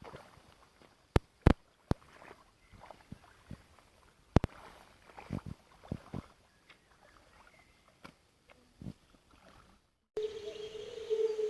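Irregular sharp knocks and clicks, a few of them loud, spaced a second or more apart over faint background noise. About ten seconds in, the sound cuts abruptly to a steady low tone with hiss above it.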